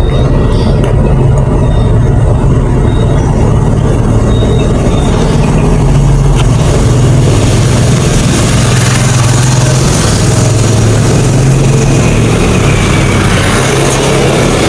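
A motor vehicle's engine running steadily as it travels, with a continuous rush of wind and road noise that grows louder about halfway through.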